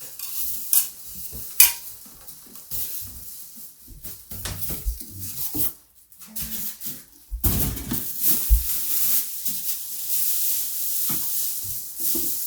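Packaging being handled during unboxing: scattered knocks and scrapes, then a long stretch of loud rustling from about halfway on, like plastic wrap and styrofoam being pulled off.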